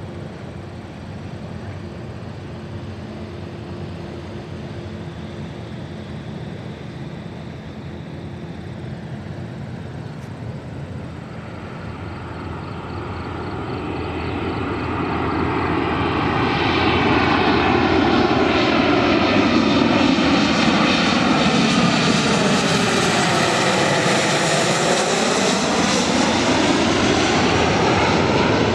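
Boeing 737 jet airliner on final approach with its landing gear down, its engine noise faint at first, then swelling from about halfway through into a loud jet roar as it passes low overhead. Near the end comes a swishing, phasing whoosh.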